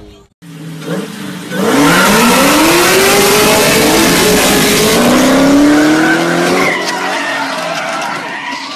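A car's engine revving hard while its tyres squeal and skid, a loud rush from about a second and a half in to nearly seven seconds, the engine pitch climbing twice. The sound then drops to a quieter engine note.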